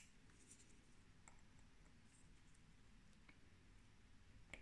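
Near silence broken by a few faint, sharp clicks of tweezers touching small parts of a watch movement; the clearest click comes near the end.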